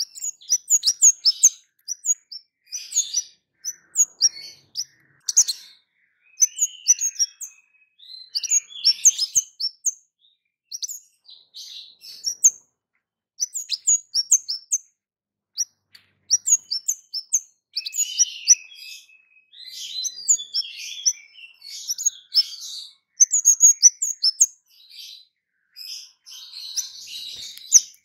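Kemade songbird giving sharp, rapid 'cit' chirps: quick runs of short, high, down-slurred notes broken by brief pauses, with a denser, more continuous stretch of twittering near the end.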